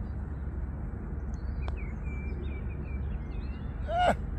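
A single sharp click of a putter striking a golf ball about a second and a half in, over a steady low rumble of wind on the microphone and small birds chirping. Near the end comes a short, louder exclamation from a person's voice.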